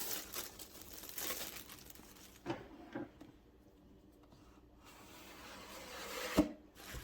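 A product box being opened and its packaging handled by hand: rustling and rubbing at first, two light knocks a few seconds in, then a rising scrape and a sharp knock near the end.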